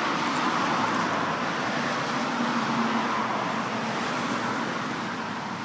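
Steady hiss of road traffic, easing slightly toward the end.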